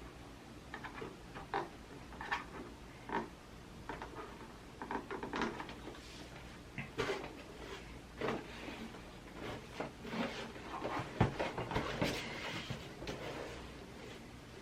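Irregular small clicks, taps and knocks of hands handling a PS5 console and its parts, some louder knocks clustered past the middle.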